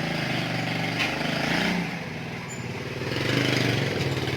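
Motor vehicle engine running steadily with a low hum, its pitch shifting slightly a few times.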